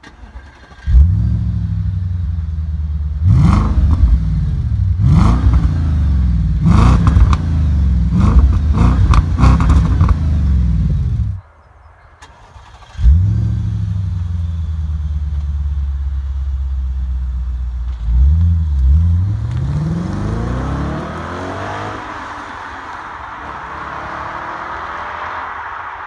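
Audi S5 4.2-litre V8 through an Eisenmann rear silencer and quad tailpipes: it flares into life about a second in, idles and is revved in a string of quick blips, then cuts off. It flares up again about two seconds later, idles, and accelerates away with rising pitch, fading with distance near the end.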